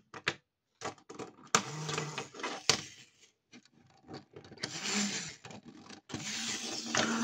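Clockwork tin toy tram: a few clicks as its key is wound, then its wind-up spring mechanism whirring, stopping and starting again about halfway through. The tram doesn't run well on it.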